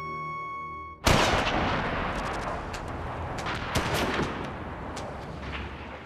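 A held music chord cuts off, and about a second in dense gunfire breaks out suddenly: rapid crackling shots with heavier bangs among them, loudest at the start.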